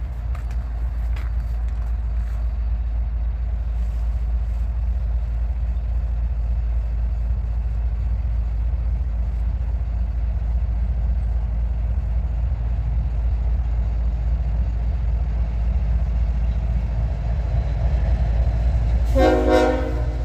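Freight train's GE ES44AH diesel locomotives approaching under power, a low engine rumble slowly growing louder. Near the end the locomotive's air horn sounds one short blast of about a second.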